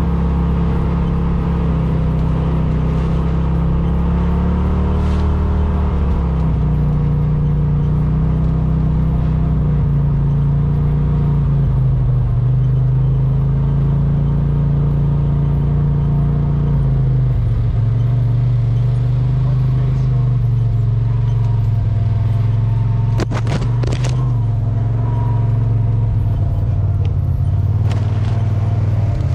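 Polaris RZR Pro XP4 side-by-side engine running under way, its pitch rising and falling slowly as the throttle changes. A few sharp clicks or knocks come near the end.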